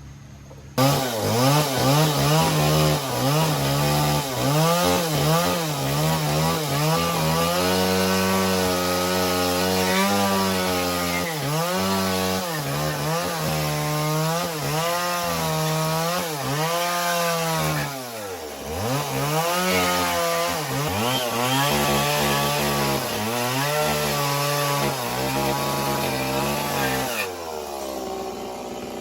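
Stihl two-stroke chainsaw cutting wood. It starts suddenly about a second in, its engine speed rising and falling over and over as it works through the cut, then eases off near the end.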